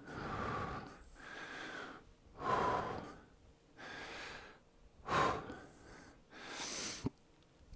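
A man breathing audibly in and out through a headset microphone, about one breath sound a second, while exercising. There is a short sharp click near the end.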